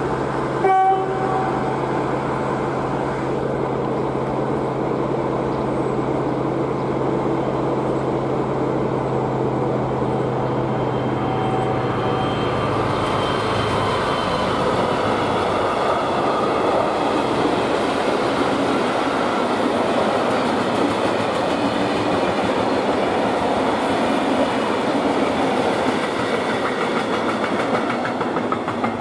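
DB class 218 diesel-hydraulic locomotive approaching with a steady engine drone, with a short horn blast about a second in. From about halfway it passes with a train of flat wagons, their wheels rolling loudly over the track until the noise dies away near the end.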